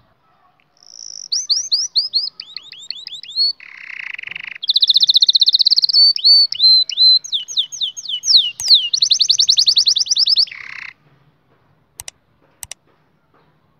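White canary singing a long song of rapid repeated trills and rolling phrases, broken by a couple of short harsh buzzy notes, stopping about eleven seconds in. Two short clicks follow near the end.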